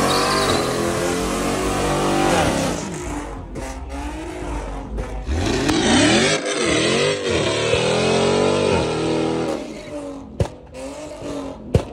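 Dodge Challenger's supercharged V8 revving hard through a burnout, its pitch rising and falling several times over the rasp of spinning, smoking tyres. It eases off near the end with a couple of sharp cracks.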